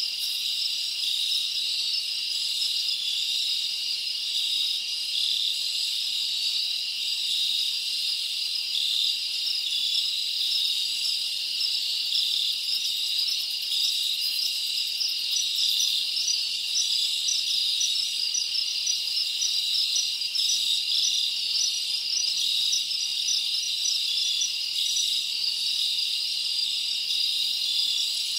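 Steady, dense chorus of insects, a continuous high-pitched trilling with fine rapid pulsing.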